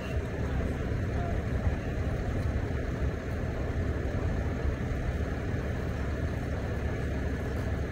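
Wind buffeting the microphone: a steady low rumble that rises and falls irregularly.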